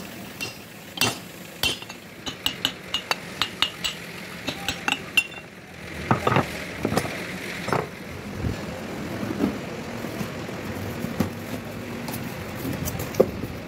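Hammer tapping on a steel truck differential carrier: a quick run of ringing metallic clinks, about three or four a second, then a few heavier knocks a few seconds later. Near the end, the rustle of a cardboard parts box being opened.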